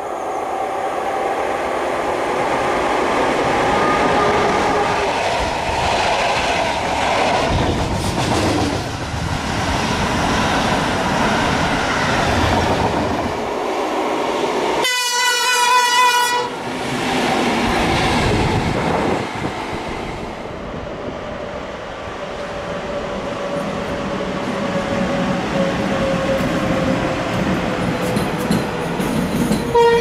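Trains running past on the track with a steady rumble of wheels on rail. About halfway through, a single loud train horn blast lasts about a second and a half. A falling tone runs under the rolling noise later, and another horn note starts right at the end.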